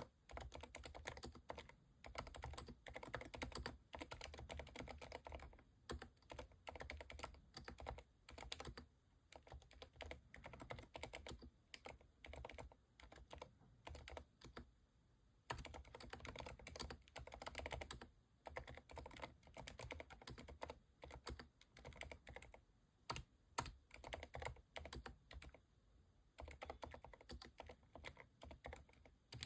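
Quiet, continuous typing on a Keychron V10 Pro Max mechanical keyboard with silent switches (Cherry MX2A Silent Red and TTC Silent Brown): a fast run of soft, damped keystrokes broken by a few short pauses.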